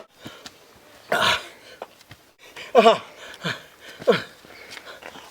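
Short cartoon character vocal sounds: a breathy, cough-like burst about a second in, then three short yelps that fall in pitch.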